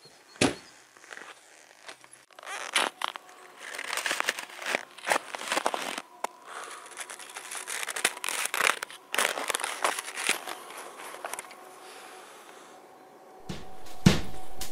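Atomic cross-country skis, boots and poles crunching and scraping on cold groomed snow: an irregular run of crisp crunches and scrapes, with one sharp knock about half a second in.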